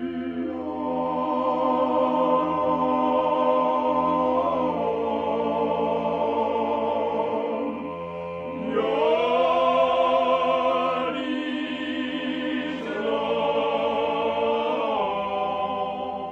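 Slow background music of long, held choir-like chords over a steady low drone. The chord shifts a few times, with a brief dip in level just before the middle.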